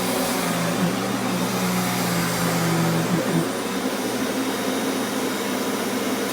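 Sharp Twin Energy upright vacuum cleaner running steadily with a loud motor and fan rush. A low hum in its sound drops out about halfway through.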